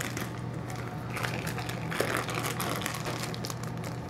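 Plastic grain spawn bag crinkling irregularly as it is handled and wiped down with an alcohol-soaked rag, over the steady hum of a laminar flow hood's fan.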